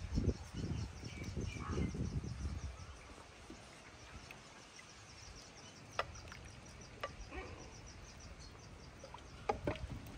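A high chirp repeats at a steady, quick pace, with low thumps in the first couple of seconds and a few sharp clicks later on.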